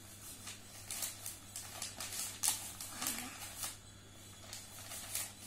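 A sheet of newspaper being handled and folded by hand, with irregular crackles and rustles of the paper.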